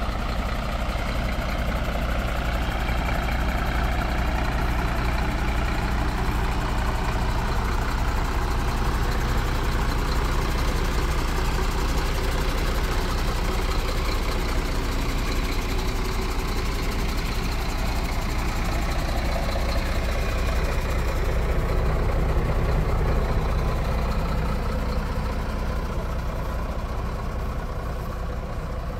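Mercedes-Benz Atego 1828's six-cylinder diesel engine idling steadily.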